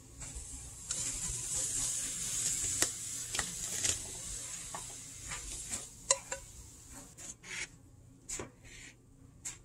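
Cooked eggs and vegetables scraped out of a pan into a plastic bowl: a hiss with scraping and a few sharp clicks for about the first four and a half seconds, then quieter, scattered knocks as the bowl is handled and shaken.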